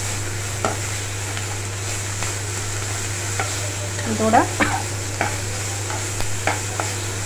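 Green capsicum, onion and garlic sizzling in hot oil in a non-stick pan while being stir-fried with a perforated spatula. The spatula knocks and scrapes against the pan every second or so over a steady sizzle.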